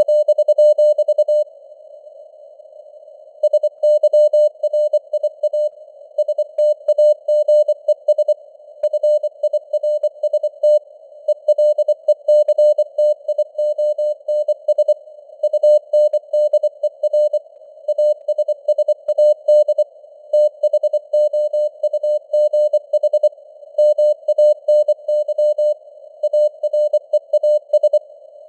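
Computer-generated Morse code (CW) sent at 24 words per minute: a single mid-pitched tone keyed on and off in dots and dashes. It sits over a narrow band of hiss that imitates radio receiver noise. A gap of about two seconds comes near the start, then the keying runs on without a break.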